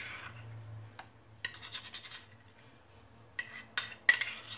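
Metal spoon scraping ginger-garlic paste out of a small china bowl into a stainless steel bowl: a longer scrape about a second and a half in, then a few short scrapes and knocks near the end.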